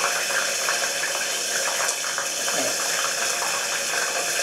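Nori seaweed wraps deep-frying in very hot oil in a pot: a steady sizzle with dense crackling.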